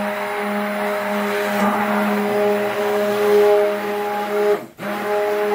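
Stick (immersion) blender running in cold-process soap batter: a steady motor hum with a churning, swishing hiss as the batter is blended toward trace. The motor cuts out for a split second about three-quarters through and starts again.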